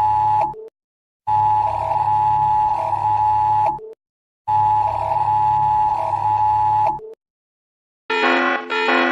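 Emergency Alert System–style two-tone attention alarm: a harsh steady dual tone that cuts off and repeats. The end of one burst is followed by two more of about two and a half seconds each, with short silences between. Keyboard music comes in about eight seconds in.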